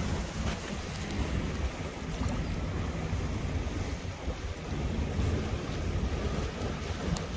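Wind buffeting the microphone by the sea: a steady rumbling noise with a faint low hum beneath it.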